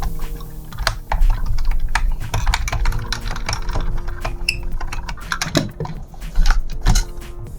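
Irregular clicks and taps of small hard plastic and metal parts being handled, typical of a diecast model truck and its packaging being unboxed, with soft background music underneath.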